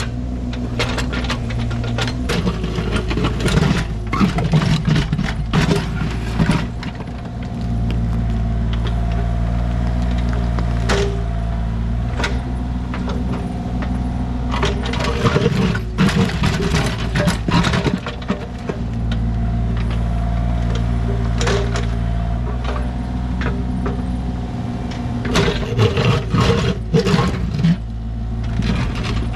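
Diesel engine of a compact construction machine running under varying load, with repeated sharp clanks and knocks of the digging work, steadier stretches in between.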